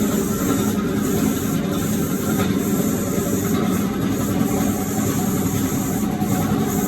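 Willys M606 jeep engine idling steadily.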